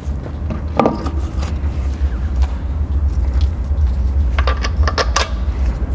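Metal tools and hardware clinking and rattling during car repair work: a few sharp clinks about a second in and a quick cluster of them near the end, over a steady low rumble.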